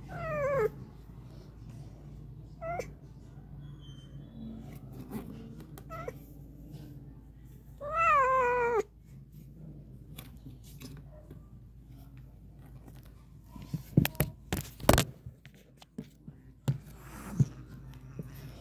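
Cats yowling in a territorial standoff: a falling yowl at the start, a couple of short cries, then a longer wavering yowl about eight seconds in. Several sharp knocks come later, around fourteen to fifteen seconds.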